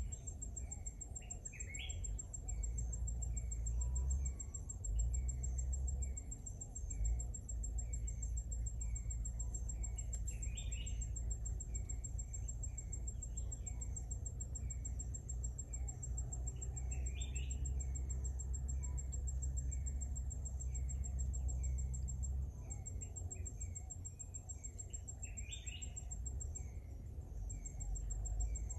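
Outdoor insect and bird chorus: a steady high-pitched insect trill, a bird repeating a short chirp about once a second, and a brief rising bird call four times, roughly every seven or eight seconds. A low rumble sits underneath.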